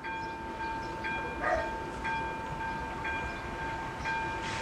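A steady high tone that pulses about once a second, with soft hissing bursts about a second and a half in and near the end, as a steam locomotive approaches in the distance.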